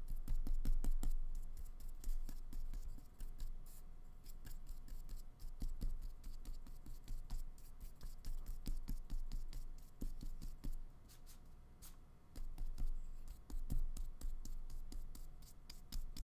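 Small paintbrush drawing short lines of acrylic paint on paper: a run of quick, scratchy brush strokes and light ticks, uneven in pace.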